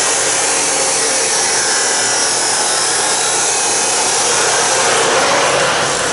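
Steady, loud rushing noise of an air-moving machine, with no pitch or rhythm.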